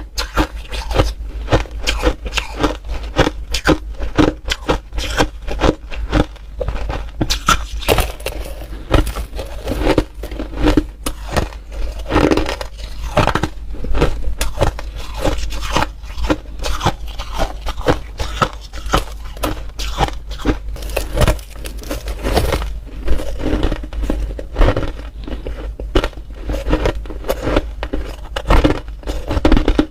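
Crunchy ice being bitten and chewed: a dense, irregular run of crisp crunches, several a second.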